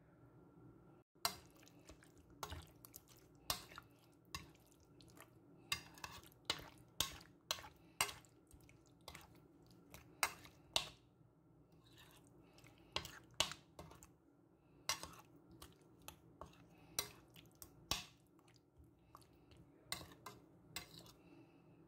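Raw chicken pieces being turned and squished in a thick yogurt-and-spice marinade: irregular wet squelches and clicks, one or two a second, over a faint steady hum.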